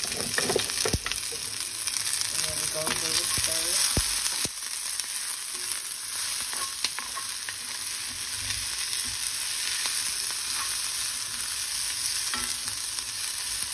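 Sliced onion and green bell pepper sizzling in oil in a cast-iron skillet, stirred with a spatula. There is a steady sizzle, with sharp knocks of the spatula against the pan about one second and four seconds in.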